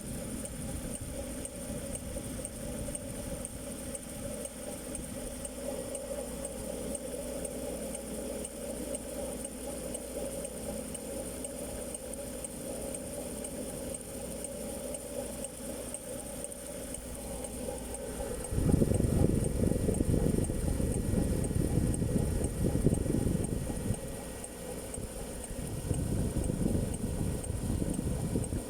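Land Rover Discovery 3's 4.4 V8 engine running steadily after a cold start, with a clattering knock that the owner suspects comes from the timing chain tensioner and chain guide, not the viscous fan clutch. About two thirds of the way in, a loud low rumble joins and covers it, dips briefly, then returns.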